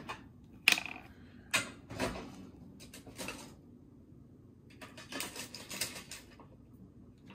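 Markers being handled and picked through in a search for another colour: a sharp click about two-thirds of a second in, another about a second later, then light clattering and scratching about five seconds in.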